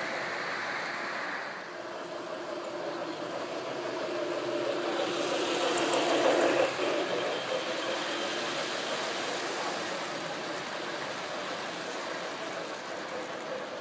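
Three-rail model trains running on the layout: a steady rumble of wheels and motors on the track that swells as a train passes close by about six seconds in, then eases back.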